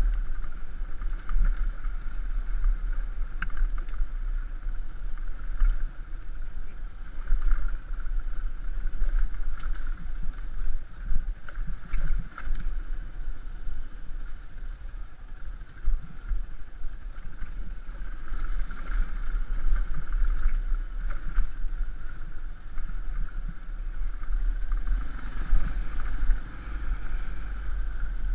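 Dirt bike engine running steadily while the bike rides along a rough dirt track, with a heavy, uneven low rumble underneath and occasional small knocks.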